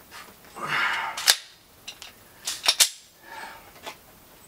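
Gunshots on a pistol range: a single sharp crack about a second in, then a quick pair of cracks just under three seconds in.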